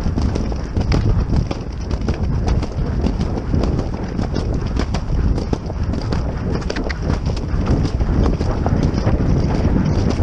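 Horse galloping over grass, heard from the saddle: a continuous run of hoofbeats over a steady low rumble of rushing air on the microphone.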